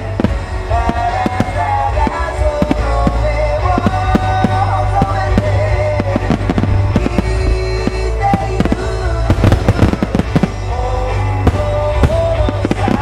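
Aerial fireworks shells bursting in quick, irregular succession, many sharp bangs overlapping, over a song with a sung melody playing throughout.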